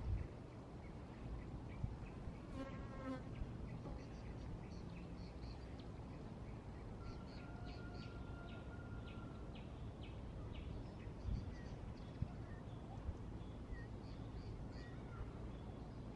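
Open-air ambience with a steady low rumble of wind on the microphone and birds calling. There is a brief buzzy call about three seconds in, a long thin whistle near the middle, and scattered high chirps, with a few faint knocks.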